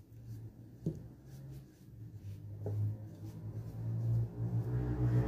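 Flat paintbrush spreading white glue over an MDF piece: soft scratchy brush strokes with a few light clicks. A low steady hum grows louder near the end.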